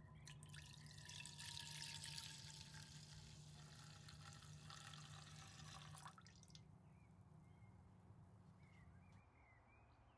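Milk pouring in a thin stream into a nonstick pan, a faint splashing trickle that stops about six seconds in. A faint low hum runs underneath.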